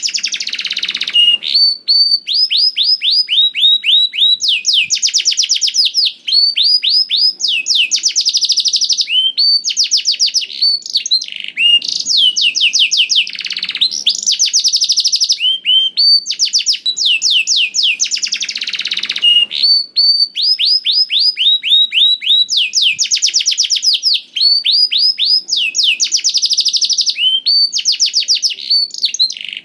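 Domestic canary singing continuously: fast rolling trills of rapid, quickly falling notes, one phrase after another with only brief breaks.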